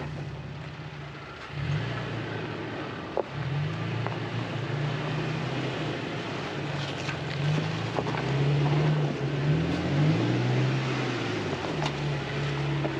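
Toyota truck's engine revving up and down under load as it makes a second run up a steep rutted track, after high-centering on its rear differential, with a few light knocks.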